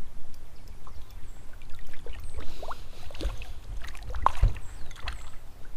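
Wind rumbling on the microphone, with water splashing and lapping and scattered clicks and knocks, loudest about three to four and a half seconds in.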